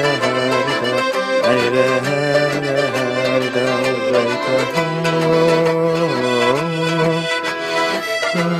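Piano accordion playing a Circassian qafe dance tune: a moving melody over held bass notes, with a steady beat of light clicks.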